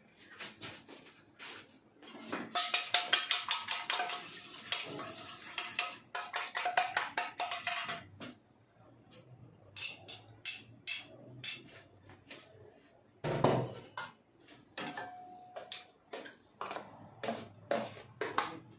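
A utensil beating an egg in a stainless steel bowl. A rapid clatter of strikes, about six a second, sets the bowl ringing faintly, then slows to scattered taps with one louder knock about two-thirds of the way through.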